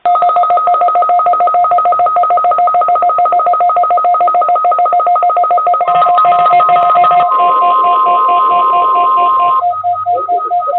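Weather radio alert receiver beeping, a rapid two-note pulse about five times a second. About six seconds in, the National Weather Service weather radio warning alarm tone joins as a single steady high tone and cuts off after a few seconds. A voice then begins under the continuing beeps.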